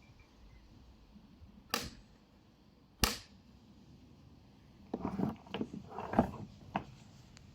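Two sharp single clicks, then a run of irregular knocks and clatter, from the parts of a Nilfisk Buddy II wet/dry vacuum being handled while its motor is off.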